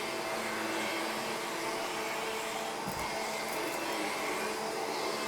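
Power-drive vacuum cleaner running steadily as it is pushed over worn polyester carpet, with a brief click about three seconds in.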